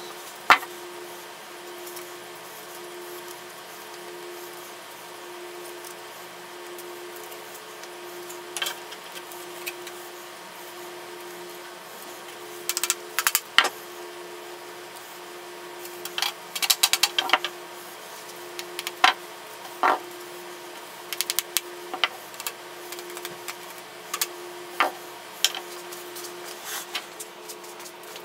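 Scattered clicks and light knocks of a back saw's parts (steel blade, polished steel back and wooden handle) being handled, fitted together and set down on a wooden workbench, in small clusters mostly in the second half, over a steady low hum.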